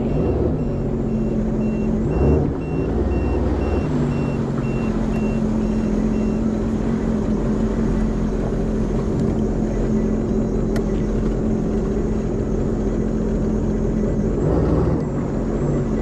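Jet ski engine running steadily at idle, its note dipping and changing briefly a couple of seconds in. A high electronic beep repeats about twice a second over the first six seconds.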